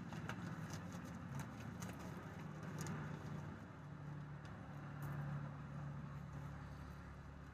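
Faint crinkling and rustling of plastic packaging as small packets are pulled out of a cut-open mailer bag, in a few short crackles, over a low steady hum.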